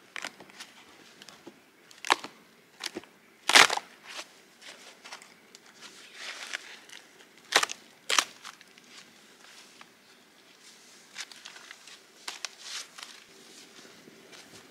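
Cold, dry snow crunching in irregular sharp crunches, the loudest a little over three seconds in and two more close together around eight seconds, with softer crumbly scrapes between.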